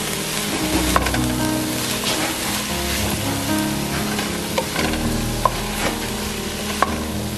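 Diced vegetables sizzling in a nonstick pot as they are stirred, with a few sharp knocks of the spoon against the pan.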